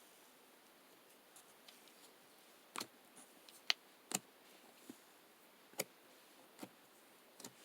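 About seven soft, irregular clicks and taps over quiet room tone, most of them in the second half.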